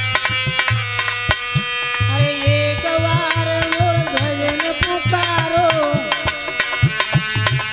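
Indian devotional music: a hand drum plays a quick rhythm of deep bass strokes that bend in pitch under sharp treble strokes, over a steady held drone note, with a wavering melody line from about two to six seconds in.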